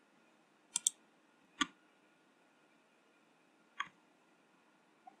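A few sharp clicks from a computer mouse button or keyboard key: a quick double click near the start, single clicks about a second and a half and about four seconds in, and a faint one near the end, over a faint steady hum.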